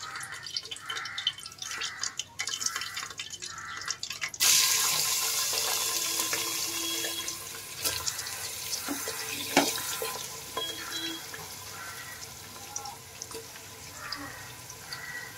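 Sliced onions dropped into hot oil with whole spices, sizzling with a sudden loud hiss about four seconds in that slowly dies down into steady frying. Before that, light crackling of the spices in the oil.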